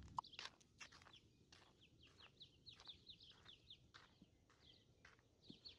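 Small birds chirping faintly: a steady run of short, falling chirps, several a second, with a sharp click just after the start.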